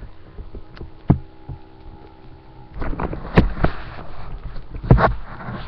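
Handling noise from a laptop with its webcam being moved and adjusted: a knock about a second in, then rustling close to the microphone with several sharp knocks over a faint steady hum.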